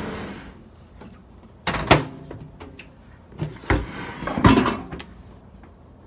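A small countertop microwave oven being tilted and shifted on a kitchen counter: a series of separate knocks and clunks, about six, the loudest just under two seconds and about four and a half seconds in.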